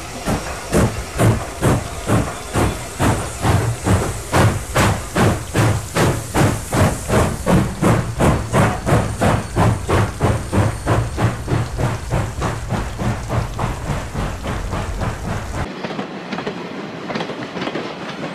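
Steam locomotive exhaust chuffing in a steady rhythm, about two and a half beats a second, from Strasburg Rail Road's 2-6-0 No. 89 and 2-10-0 No. 90 double-heading a train. About sixteen seconds in the sound changes abruptly to a thinner recording, and the chuffing goes on fainter.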